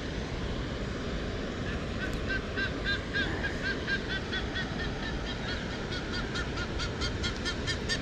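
A bird calling over and over from about two seconds in: a quick series of short, arched notes, about three to four a second, over a steady low rumble.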